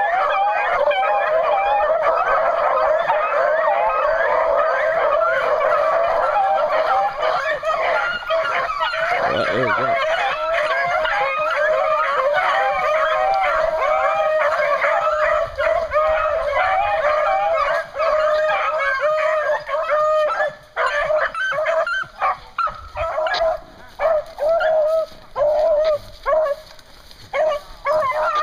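A pack of beagles baying on a rabbit's track: many voices overlapping in a continuous chorus, thinning to separate bawls with gaps in the last third.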